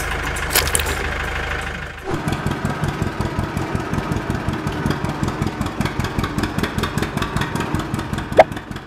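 Tractor engine sound: a steady running hum, then after about two seconds a change to a chugging engine with rapid, even pulses. A short sharp chirp near the end.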